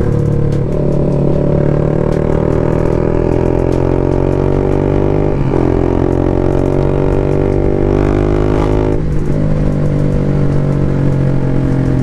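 BMW G310 RR's single-cylinder engine pulling under acceleration, its pitch rising steadily and dropping briefly at two upshifts, about five and a half and nine seconds in.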